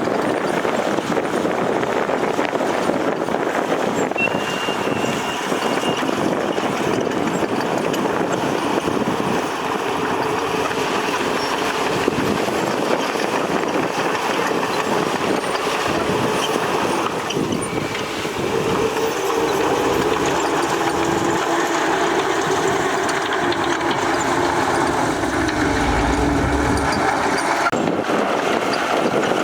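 Heavy diesel earthmoving machinery, a bulldozer and a dump truck, running and working under load as one continuous loud mechanical noise. About two-thirds of the way through, a steadier engine hum comes in.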